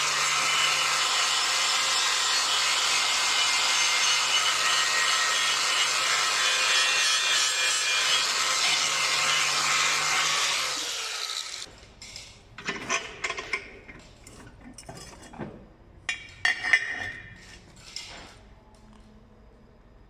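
Angle grinder grinding on steel tube, running steadily for about ten seconds and then spinning down. A few light metal clinks and knocks follow.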